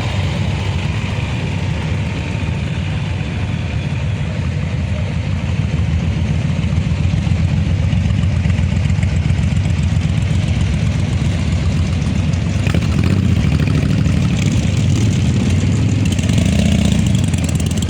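Harley-Davidson V-twin motorcycle engines rumbling at low revs as a parade of bikes rolls past, a steady low throb that swells slightly in the second half.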